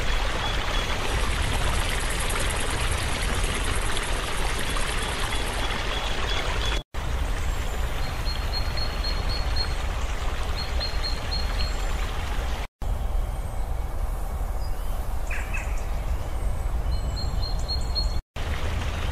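Steady rush of river water, fullest and brightest during the first seven seconds, with short, repeated bird trills over it. The sound drops out briefly three times.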